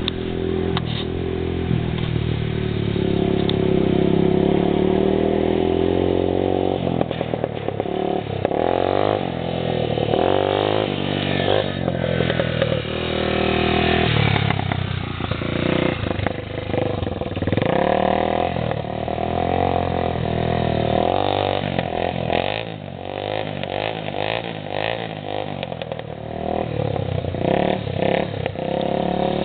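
Yamaha TT-R225 dirt bike's single-cylinder four-stroke engine being ridden hard, its pitch rising and falling again and again as the throttle is opened and closed.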